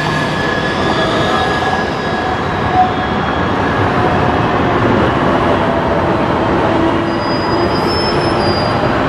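Articulated city trams rolling through a tight curve in street track, with a steady rolling rumble of steel wheels on rail. Faint tones sound early on, and high thin wheel squeals come in near the end as a tram takes the curve close by.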